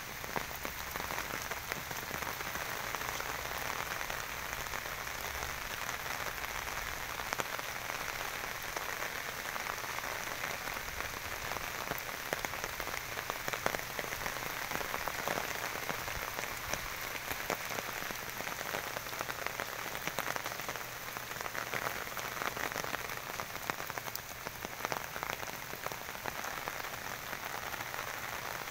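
Steady rain falling, an even hiss broken by many scattered taps of single drops.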